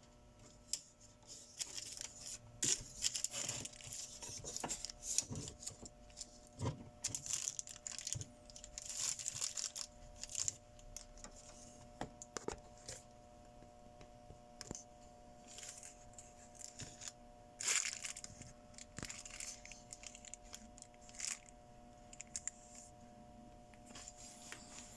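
Hands opening the casing of a Telwin inverter welding machine: irregular clicks, scrapes and rustling as the housing is worked loose, over a faint steady hum.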